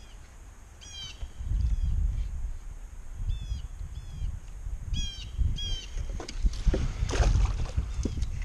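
A bird calls over and over in short, quick chirping phrases. Under it run louder low rumbling and scattered knocks from handling in a small boat, busiest near the end.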